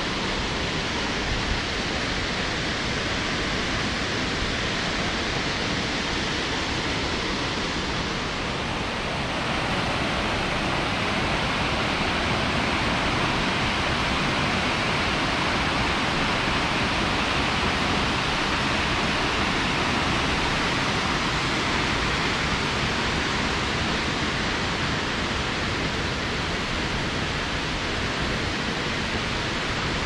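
Steady rush of a waterfall and mountain stream, a little louder and brighter from about nine seconds in.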